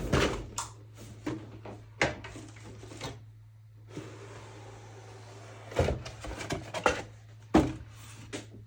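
A cardboard model-kit box being handled and opened: scattered knocks, thunks and rustles of the lid and contents, over a steady low hum.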